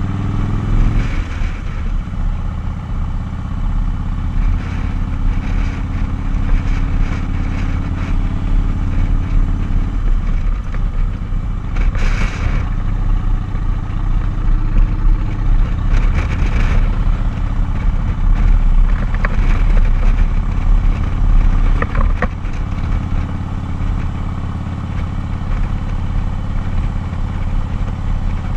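Cruiser motorcycle engine running steadily at road speed, heard from the rider's seat; its note drops about a second in, and a few brief bursts of noise pass over it.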